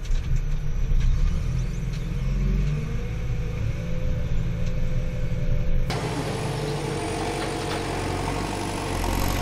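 JCB backhoe loader's diesel engine running as the machine drives on, a low rumble heard from inside the cab, with a rising whine about three seconds in. About six seconds in the sound changes abruptly to the same machine heard from outside, fuller and brighter.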